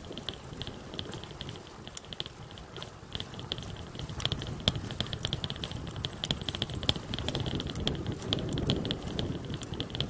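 Bicycle freewheel ticking rapidly as the bike coasts, louder from about four seconds in, over the low rolling noise of tyres on a concrete sidewalk, with a few sharper knocks.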